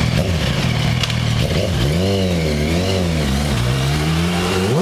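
Yamaha YZF-R1 sport bike's inline-four engine running low at first, then revving up and down several times as the bike rides off, with a sharp climb in revs near the end.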